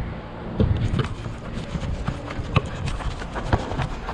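Running footsteps on artificial turf, picked up through a body-worn GoPro as irregular thuds and knocks. One sharper thump about two and a half seconds in.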